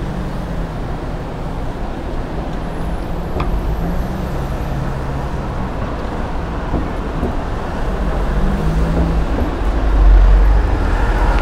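Street traffic noise: a steady mix of road vehicles, with a vehicle's low rumble growing louder about ten seconds in as it passes close.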